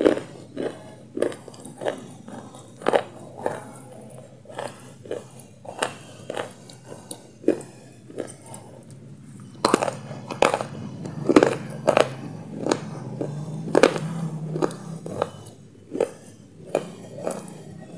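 Close-miked chewing of crunchy food: sharp, irregular crunches about once or twice a second. A low hum runs under the crunches through the middle stretch.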